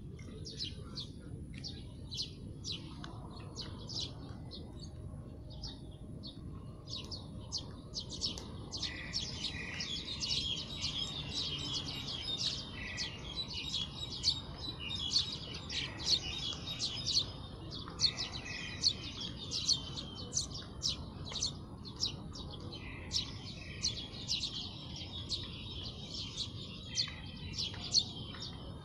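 Small birds chirping: many quick, high, overlapping calls, growing busier and louder about eight seconds in, over a low steady background rumble.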